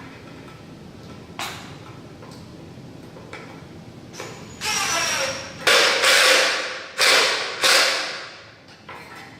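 Work noise from fitting a small stainless steel basket onto the cart: a couple of light clicks, then a sustained rasp with a thin high tone, followed by four short, loud, noisy bursts that each die away quickly, about two thirds of the way in.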